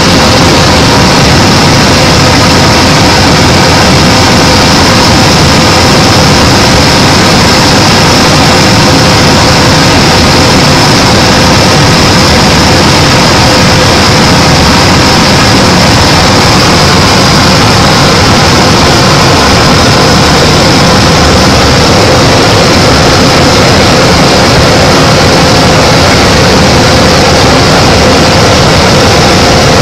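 Light single-engine propeller aircraft's engine and propeller running steadily at cruise power, heard loud inside the cockpit, with a constant high whine over the drone.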